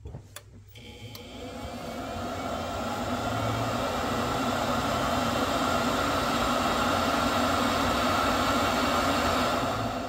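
A couple of short clicks, then a Biasi combi boiler's fan whirring up over a few seconds as power is restored, settling into a steady whir with a low hum.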